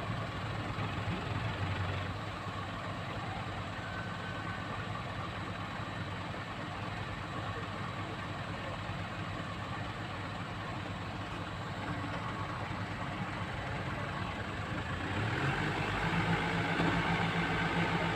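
Komatsu excavator's diesel engine running steadily at low revs, then revving up and getting louder about fifteen seconds in.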